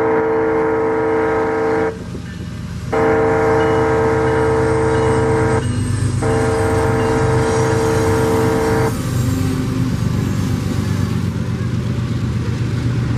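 Freight locomotive's multi-chime air horn blowing long blasts: one ends about two seconds in, then two more follow with a short gap between. After the horn stops, the diesel locomotives' low engine rumble grows as the train draws up and passes.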